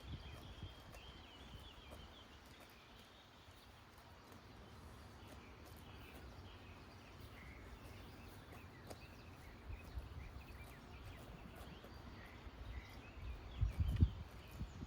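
Quiet farmyard ambience: faint bird chirps over a low rumble, with a few dull thumps close together near the end.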